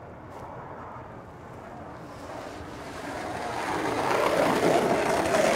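Skateboard wheels rolling over asphalt, a rough rushing noise that grows louder from about halfway through as the board comes close.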